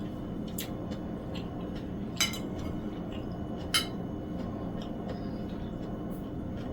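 Cutlery clinking against a plate a few times while eating, the two clearest clinks a little over two seconds and nearly four seconds in, over a low steady room hum.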